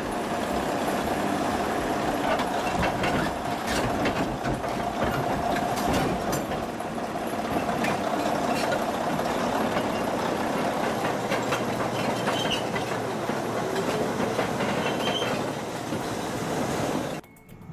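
Caterpillar D9G crawler bulldozer on the move, its steel track chains clattering and clanking steadily with a high squeal over the running machine. The sound cuts off abruptly near the end.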